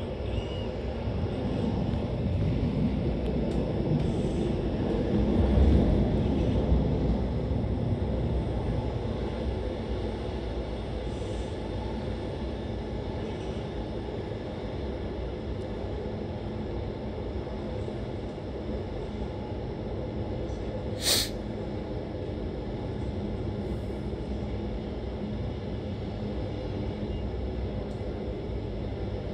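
NMBS/SNCB Classic (AM Classique) electric multiple unit running on the rails: a steady rumble that swells briefly several seconds in. A single sharp click comes about twenty seconds in.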